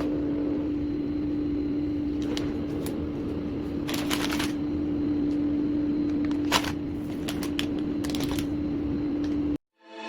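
Items being handled, with scattered rustles and clicks over a steady hum. The sound cuts off abruptly near the end.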